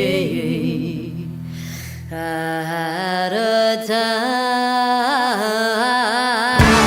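Background music: a melody with wavering, singing-like pitch over sustained tones, with a full band and bass coming in near the end.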